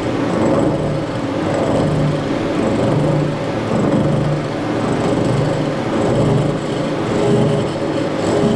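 Harrison horizontal milling machine running, its 4¼-inch horizontal milling cutter taking a light 0.1 mm cut across a welded steel clamp face. A steady machine and cutting noise with a low hum that swells about once a second.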